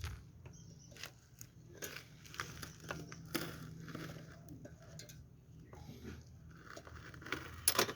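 Scattered small clicks, scrapes and knocks of hands working on motorcycle brake parts and a pin, with one sharper knock near the end.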